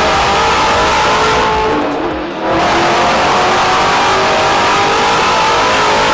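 A car engine revving in two long pulls, with a brief dip about two seconds in.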